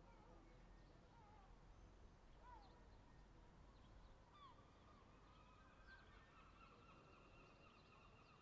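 Faint bird calls: scattered short chirps, then from about five seconds in a longer, drawn-out call, over a low steady background hum.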